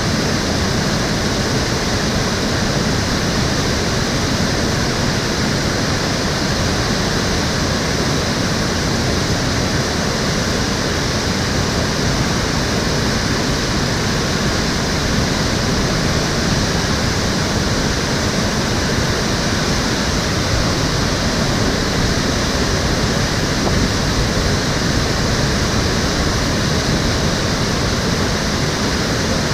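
Steady rushing of water flowing and splashing along the Cheonggyecheon, an urban stream channel.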